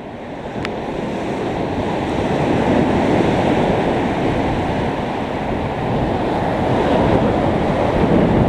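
Steady rush of wind blowing across the microphone mixed with surf, swelling over the first few seconds. A single small click about half a second in.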